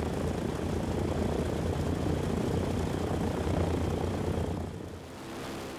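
PBY Catalina flying boat's twin Pratt & Whitney R-1830 radial engines running with a steady propeller drone, easing off slightly near the end.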